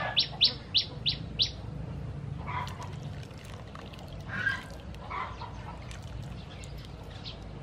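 A bird chirping in a fast, even run of short high chirps, about three a second, which stops about a second and a half in. A few fainter, lower calls follow now and then.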